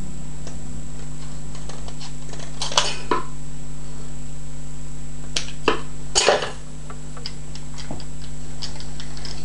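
Small metallic clicks and scrapes from working a cut strip of steel tape measure into a shim and handling the combination padlock, with a few sharper snaps, the loudest about six seconds in. A steady electrical hum runs underneath.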